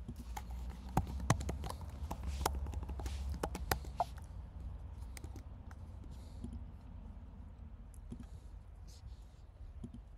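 Computer keyboard keys pressed a handful of times, scattered sharp clicks over the first four seconds as a password is typed, over a steady low hum.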